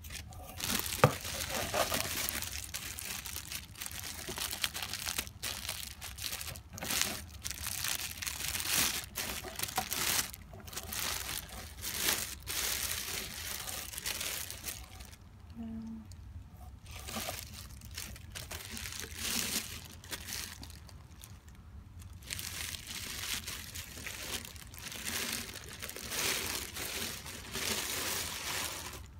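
Clear plastic bag and bubble wrap crinkling and rustling in irregular handfuls as a ukulele is unwrapped, with a couple of brief lulls.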